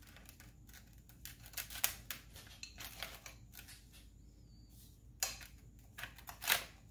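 Faint, scattered clicks and rustles of handling as a rub-coated raw chicken is worked down onto a stainless steel beer can chicken holder in a foil-lined tray. A few sharper clicks come about two seconds in and near the end.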